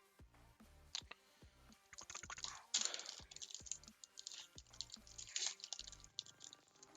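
Foil Pokémon booster pack wrapper crinkling and tearing open by hand, a dense run of crackles strongest from about two seconds in until near the end.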